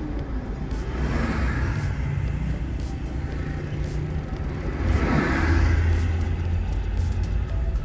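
Car on the move on a highway: steady low rumble of engine and tyres, with two swells of passing-traffic noise that rise and fall, about a second in and, louder, around five seconds in.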